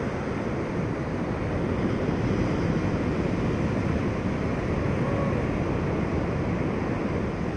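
Heavy surf breaking, a steady low rush of water, with wind on the microphone.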